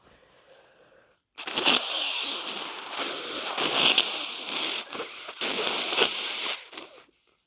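A person with a cold blowing their congested nose: one long blow starting about a second and a half in and lasting about five seconds, pushing harder three times.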